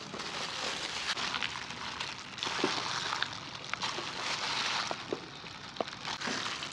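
Thin disposable plastic gloves crinkling and boiled chicken meat and skin being torn apart by hand: a crackling rustle with scattered small clicks and wet snaps.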